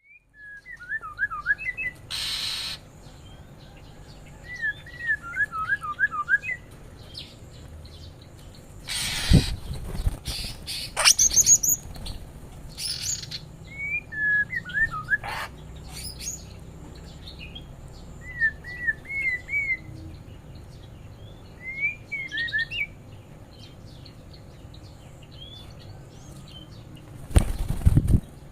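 Small songbirds in an aviary chirping in short runs of quick, down-slurred notes repeated every few seconds. A few brief noisy bursts break in, the loudest about a third of the way through and near the end.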